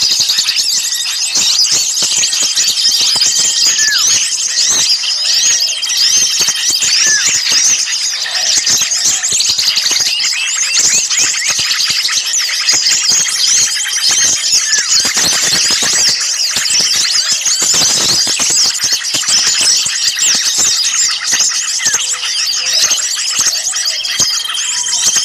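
Dense, unbroken chatter of many small songbirds calling at once, high and rapid, with short held whistles every few seconds: a noisy bird-luring recording meant to draw small birds in.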